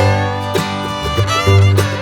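Background music: an upbeat bluegrass-style tune with fiddle and guitar over a steady bass.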